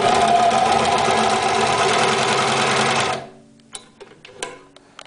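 TuffSew straight-stitch walking-foot sewing machine running at speed, stitching through the material for about three seconds and then stopping. A couple of light clicks follow.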